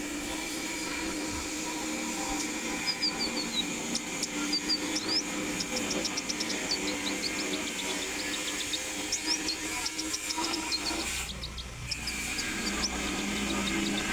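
Konin songbird singing: rapid series of short high chirps and quick down-slurred notes, coming in runs with a brief pause near the end, over a steady background hiss.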